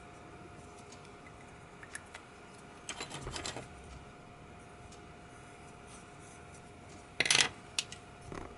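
A Sharpie marker being handled over paper on a wooden table: a cluster of soft clicks and rattles about three seconds in, then a sharper, louder clatter near the end, followed by a few lighter clicks. A faint steady hum runs underneath.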